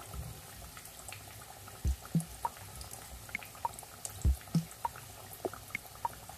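Potato-stuffed bread rolls frying in hot oil in a pan on a medium flame: a steady sizzle with scattered pops and crackles, a few louder pops about two seconds and four seconds in.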